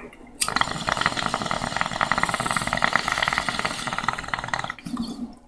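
Water bubbling rapidly through a small glass dab rig as a dab is inhaled, starting abruptly about half a second in and stopping about five seconds in.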